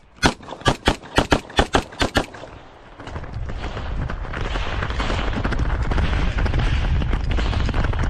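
Open-division Bul SAS II pistol fired rapidly, about ten shots in the first two seconds. Then a steady low rumble with scattered footfalls as the shooter runs to the next position.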